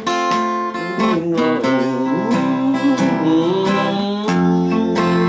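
Slow country-western song: acoustic guitar strumming under sung vocal lines.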